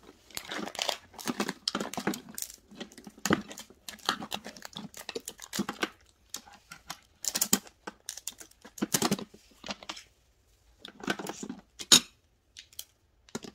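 Red snow crab legs being snipped with scissors and cracked and torn apart by hand: irregular crackles, snaps and tearing of shell in short clusters with brief pauses.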